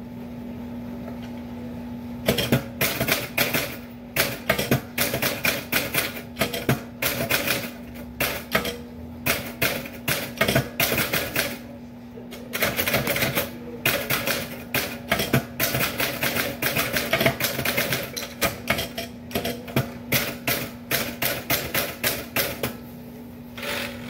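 Typewriter keys clacking in fast runs of typing, starting about two seconds in, with short pauses between runs and stopping shortly before the end. A steady low hum lies under it.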